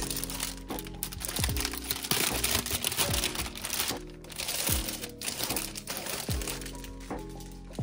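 Lo-fi background music with a steady beat, over the crinkling of packaging being handled.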